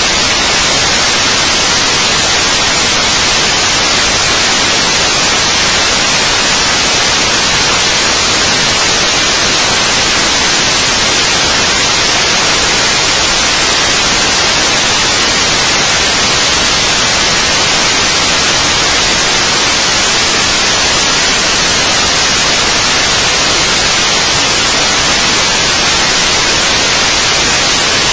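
Loud, steady static hiss that covers every other sound, unchanging throughout.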